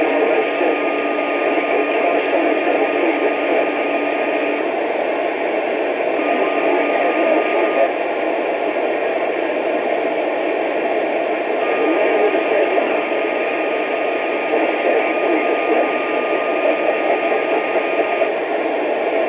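Radio receiver hissing with static and jumbled noise on an open channel. A steady whistle tone drops out and comes back several times.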